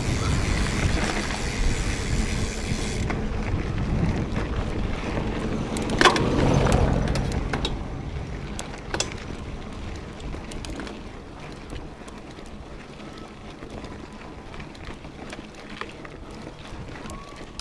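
Steady rush of falling water from a waterfall, fading gradually, with a sharp knock about six seconds in.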